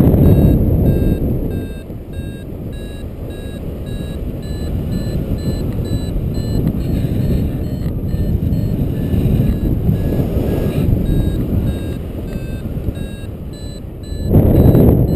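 Paragliding variometer beeping in a quick, even train of short high beeps, the tone it gives when the glider is climbing in rising air. Heavy wind rushes over the microphone throughout, gusting louder at the start and again near the end.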